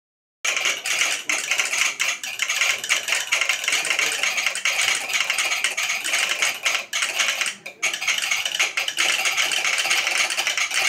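Telegraph sounders clattering rapidly as they click out Morse code, a fast irregular run of metallic clicks that starts abruptly about half a second in, with a few brief pauses.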